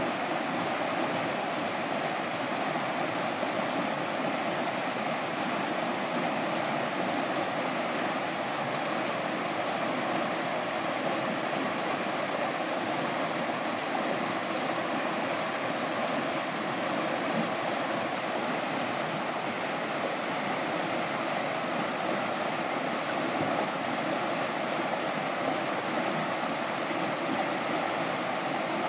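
River whitewater rushing steadily through rapids below a low concrete weir, a constant even roar of churning water.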